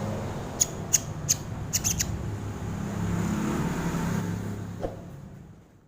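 A sogon bird gives a handful of short, sharp, high chirps in the first two seconds over a steady low background rumble, and the sound then fades out.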